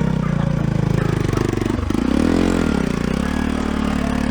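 Motorcycle engine running on a rough trail; its pitch dips about two seconds in, then rises and falls back as the throttle is opened and eased.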